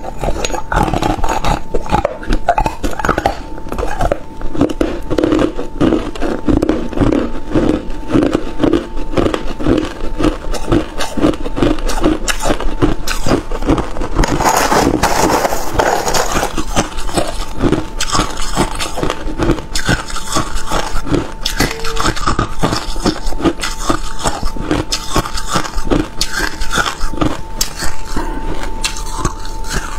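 Crushed ice being bitten and crunched between the teeth, a rapid run of sharp cracking crunches close to the microphone. About halfway through, a metal spoon scrapes and scoops through the loose ice in a plastic tub for a couple of seconds.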